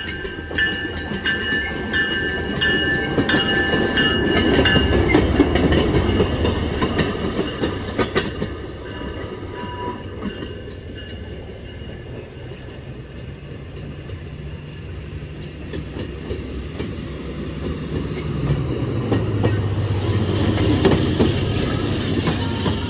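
Rail speeder cars running along the track, with a steady rumble and wheel clatter over the rails and the hum of their small engines. A high pulsing tone sounds during the first five seconds.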